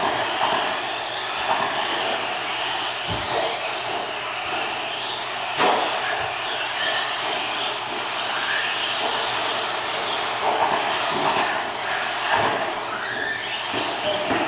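Several 1/10-scale electric stadium trucks racing on a dirt track: their motors whine up and down as they accelerate and brake, over a steady hiss of tyres on dirt, with a few short knocks.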